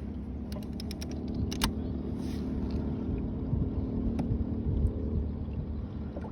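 Electric trolling motor on a kayak running with a steady low hum, with a few light clicks and knocks.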